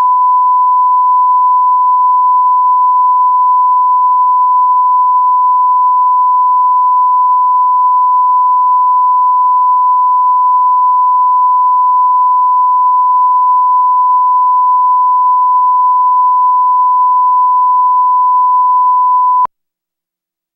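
Broadcast bars-and-tone line-up signal: a steady, loud 1 kHz reference tone held unchanged, cutting off sharply with a faint click near the end.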